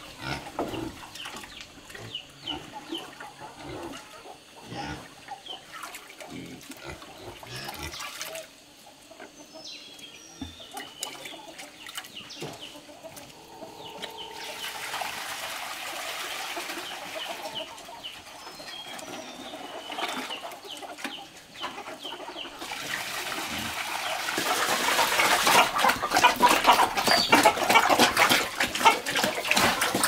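Chickens clucking around the farmyard. From about halfway through, water is poured and splashes into a pig pen, louder and denser over the last several seconds.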